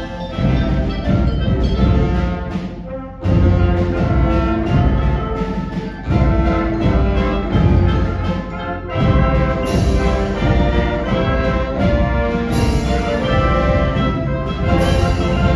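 High school concert band playing loudly, brass to the fore, in sustained full-band chords with sharp fresh entries about three, six and nine seconds in.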